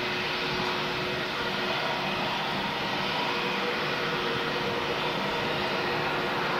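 Jet airliner's engines, a steady rush of noise with a few even whining tones held through it.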